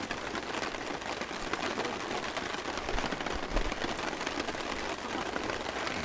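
Steady rain falling, an even hiss dotted with many small drop ticks.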